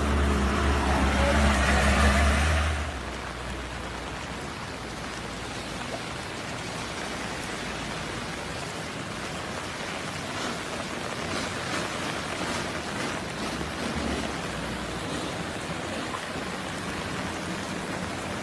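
A low engine rumble for about the first three seconds, then a steady rushing noise of water.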